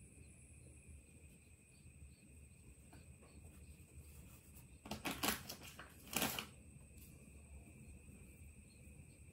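Plastic crinkle and rustle of a disposable diaper being wrapped and fastened, in two short bursts about five and six seconds in, over quiet room tone with a faint steady high-pitched tone.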